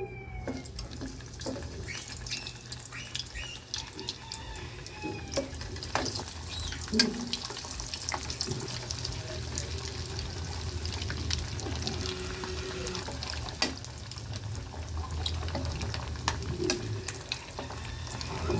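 Kitchen sounds: a steady watery hiss with scattered clinks and knocks of utensils and cookware over a low steady hum.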